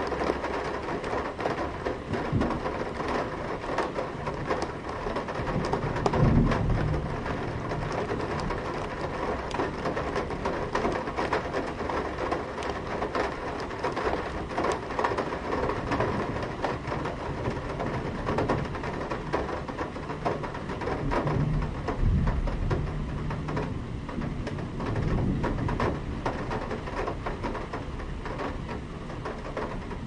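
Medium rain falling on a metal window sill, heard from inside the room: a steady hiss full of separate drop taps on the metal. Low thunder rumbles swell about six seconds in, again around twenty-two seconds, and once more a few seconds later.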